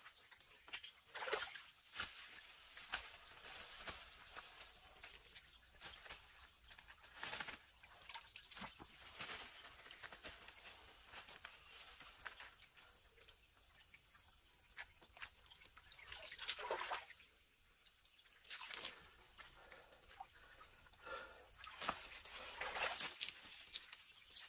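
A wild animal's short, high chirp that rises slightly, repeated about once a second, over intermittent rustling and small knocks.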